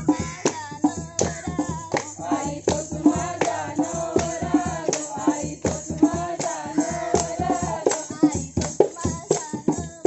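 Warli folk song: voices singing a melody over a steady percussion beat with a rattling, tambourine-like jingle.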